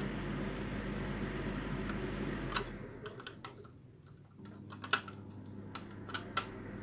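A small electric motor hums steadily and cuts out about two and a half seconds in. Then come a string of sharp plastic clicks and taps, with a fainter hum returning.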